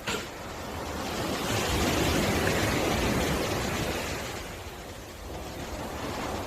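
Ocean surf on a beach: a wave breaks and washes in, its hiss swelling about a second in and dying away a few seconds later. A short sharp click at the very start.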